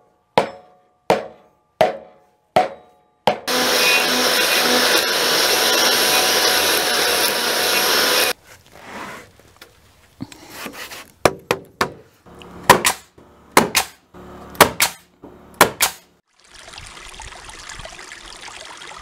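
An axe scoring a squared log: five sharp chops about 0.7 s apart. A power tool then cuts into the wood for about five seconds. Irregular knocks and strikes follow, and near the end the steady rush of a stream flowing over rocks.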